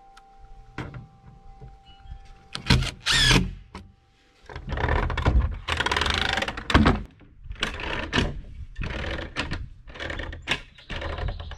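Cordless drill driving screws through a metal hinge into a plywood bed frame, in a series of short bursts, with knocks of the plywood being handled.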